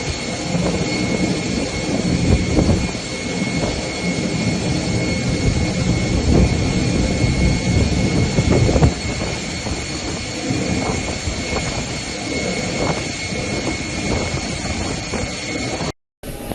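Aircraft jet engines running: a steady high whine over a heavy, rumbling roar. The sound cuts out abruptly for a moment near the end.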